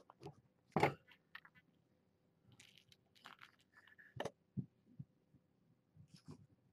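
Kittens playing right at the microphone: scattered soft thumps, scuffs and rustles of paws and fur on carpet, the loudest bump a little under a second in and another just after four seconds.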